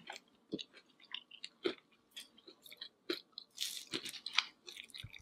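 Close-miked chewing and crunching of crisp red-coated fried chicken, a string of small scattered crackles with a denser crunch about three and a half seconds in.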